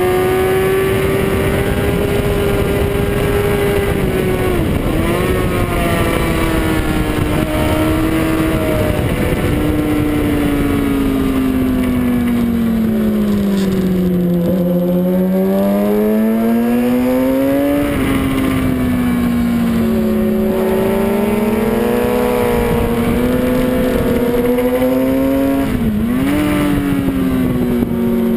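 Suzuki GSX-R sportbike's inline-four engine at high revs on a race track, over steady wind rush. The pitch holds, sinks slowly about halfway through, then climbs again, with quick dips at gear changes about 5, 18 and 26 seconds in.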